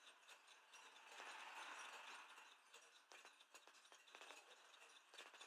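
Faint, irregular mechanical clicking and rattling from a carriage clock's brass movement.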